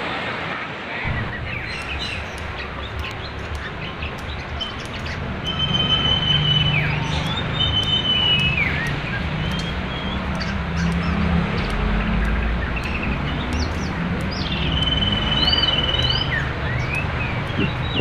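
Songbirds whistling and chirping over the steady rush of a fast-flowing river. The birds give sharp chirps and clicks and, three times, a held whistle on one steady pitch.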